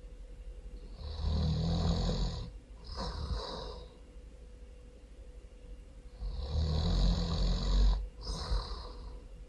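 A person snoring really loud: two snores about five seconds apart, each a long, low snore on the breath in followed by a shorter breath out.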